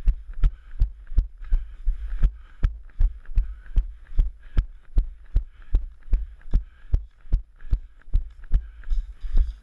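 Running footsteps thudding through a body-worn action camera, an even beat of about two and a half steps a second, over a faint hiss.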